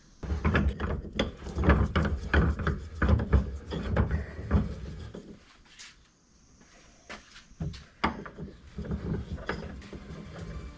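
Knocks, clatter and rubbing of hard objects being handled as a metal fitting is pressed into the hole drilled in a pool ball, in two spells with a short lull between them.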